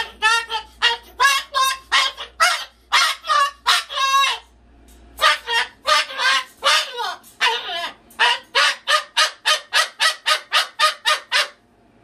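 Moluccan cockatoo screaming loudly over and over, a long string of harsh calls about two to three a second, with a short break about halfway through and stopping just before the end. The screaming is alarm at snow sliding off a tin roof.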